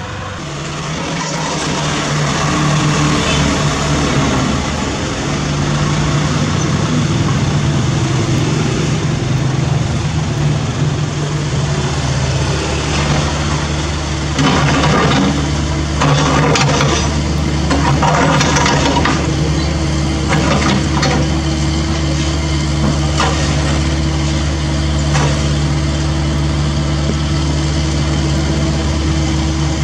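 Diesel engines of a dump truck and a CAT 305E2 mini excavator running steadily close by. From about halfway through, demolition debris clatters several times as it is dumped from the excavator bucket into the truck's steel bed.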